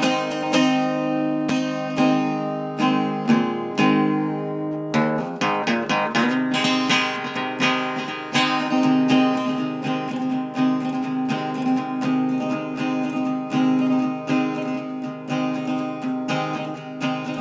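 Background music on acoustic guitar, strummed and plucked, getting fuller and busier about five seconds in.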